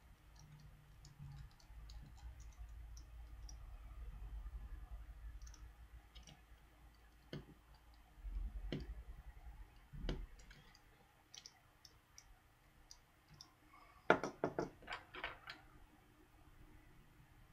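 Small sharp clicks and taps from working on a smartphone's plastic housing and tiny screws with a screwdriver. There are single clicks a few seconds apart, then a quick cluster of louder clicks near the end, over faint handling rustle.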